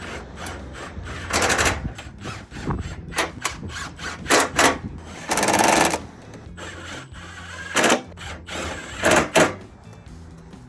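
Handheld power driver run in about eight short bursts, some under half a second and one near the middle nearly a second long, driving bolts.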